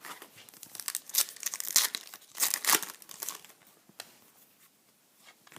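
Trading-card pack wrapper being torn open and crinkled, in a run of rustling tearing that is loudest in the middle, followed by a single click.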